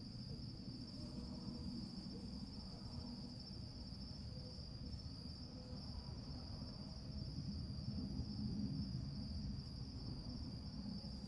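Steady insect chorus, a constant high trill that runs unbroken, over a low rumble of background noise that swells about two thirds of the way through.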